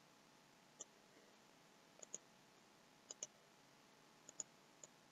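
Faint clicks of a computer mouse button, about eight, several in quick pairs, over near silence.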